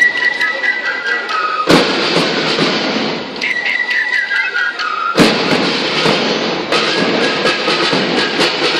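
School marching band playing: a short high wind-instrument melody twice, each time followed by dense, loud drumming about 1.7 s and 5 s in.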